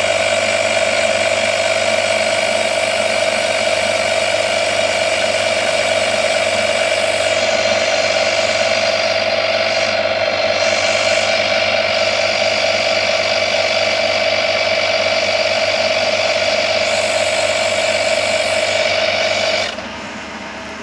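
AGARO 12 V portable digital tyre inflator's compressor running with a steady drone as it pumps up a motorcycle tyre. It cuts off abruptly near the end, when it reaches its preset 31.5 PSI and shuts off automatically.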